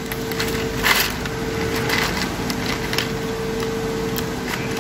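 Loose electronic components and plastic parts bags clicking and rustling as hands rummage through a box of capacitors, with a steady hum underneath.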